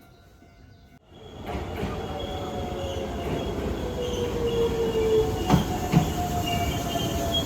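Train running on rails, starting up loud about a second in: a steady rumble with high wheel squeal tones and a couple of sharp knocks near the end.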